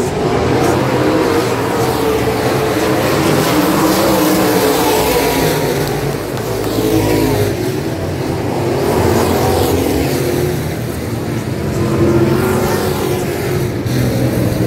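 Dirt-track Super Stock race cars' engines running as several cars go around the oval past the grandstand, their engine notes rising and falling.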